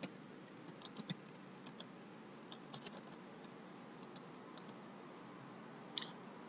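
Computer keyboard typing: a run of irregular keystroke clicks, with a slightly stronger key press about six seconds in.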